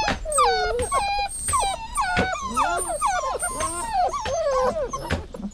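Dog whining and whimpering: a continuous run of short, high whines that slide up and down in pitch.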